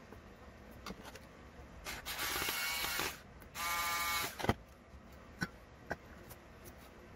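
Electric screwdriver running in two steady bursts of about a second each, with a motor whine, driving screws into a metal RC car chassis plate. A few light clicks follow.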